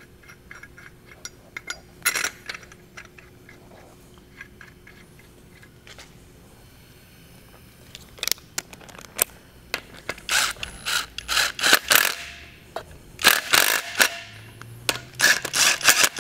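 Fixture bolts being run into the engine block with tools: a few light metal clicks and clinks at first, then from about halfway on, repeated short bursts of rapid ratcheting clicks that get louder toward the end.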